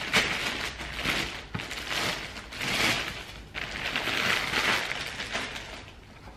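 Plastic mailer bag rustling and crinkling in irregular waves as it is torn open and a shoebox is pulled out of it.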